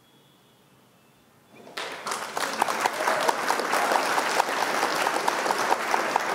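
Near silence, then about a second and a half in a recorded applause sound effect starts, with short regular blips about four a second through it, played as the quiz answer is revealed.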